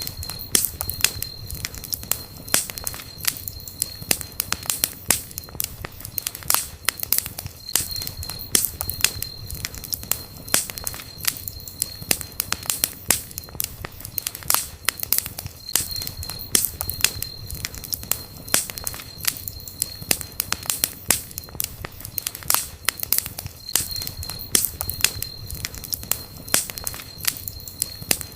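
Wood fire crackling and popping, with dense irregular snaps over the low, steady rush of the flames.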